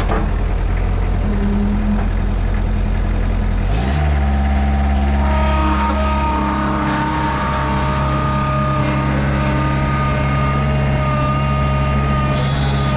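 A large engine running at low speed, then revving up about four seconds in and holding a steady higher speed. There is a brief hiss near the end.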